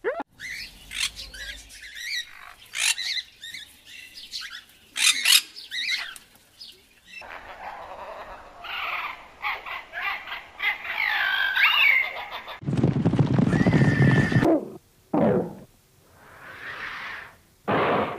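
A string of different wild animal calls: short chirps and squawks with pitch sweeps at first, then a stretch of overlapping bird-like calls. A louder, fuller call lasts about two seconds, starting about two-thirds of the way through, and a few short calls follow.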